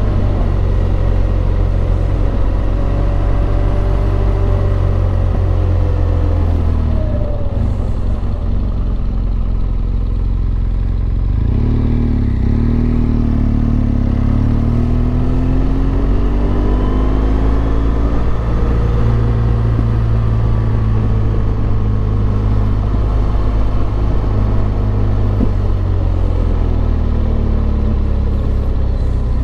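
Motorcycle engine running steadily under way, its pitch falling and rising several times as the speed changes.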